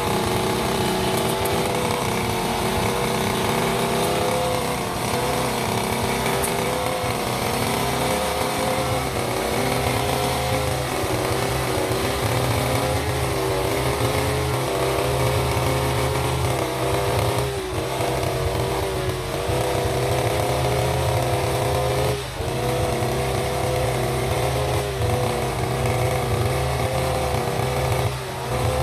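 Backpack brush cutter's small petrol engine running at high speed while it cuts grass, its pitch wavering slightly with the load and dipping briefly a few times in the second half.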